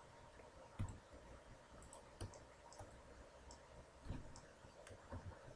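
A few faint, scattered clicks of a computer mouse and keyboard over quiet room hiss.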